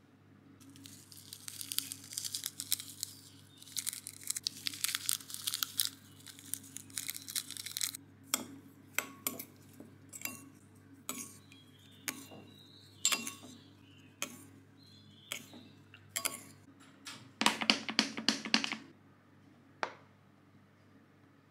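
Crinkling and tearing of small plastic seasoning sachets as dried oregano is emptied out, followed by a spoon clinking against a ceramic bowl, separate ringing clinks about one to two a second, as the oregano is stirred into the sauce. Near the end a short burst of crackling from a plastic water bottle being squeezed, then one last click.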